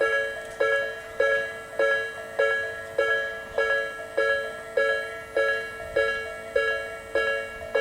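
Japanese railway level-crossing alarm of the slow-tempo Nikko Line type, ringing a two-pitch electronic bell tone about every 0.6 s, each stroke decaying before the next.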